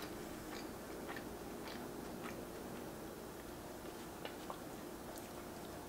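A person chewing a mouthful of cheeseburger with goat cheese and arugula, mouth closed. The chewing is faint, with soft clicks at irregular intervals over a faint steady hum.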